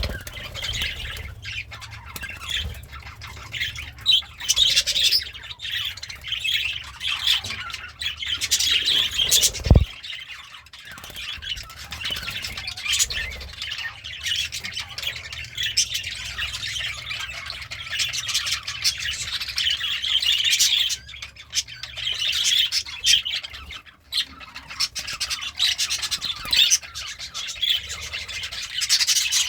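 Pet budgerigar chattering and warbling continuously, a busy stream of rapid chirps and squawks, with a single sharp knock a little under ten seconds in.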